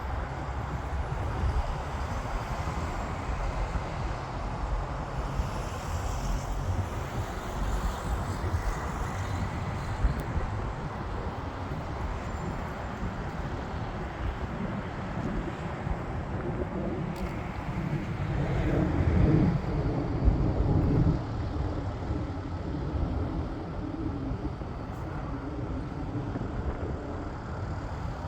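Wind buffeting the microphone over the low rumble of a jet aircraft, which swells louder about two-thirds of the way through.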